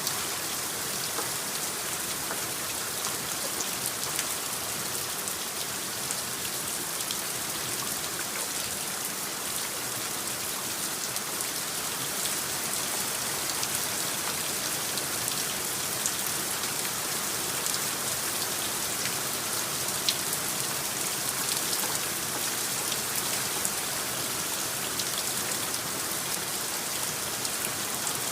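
Steady rain from a designed rain soundscape: an even hiss of rainfall dense with small drop ticks, with no change in strength throughout.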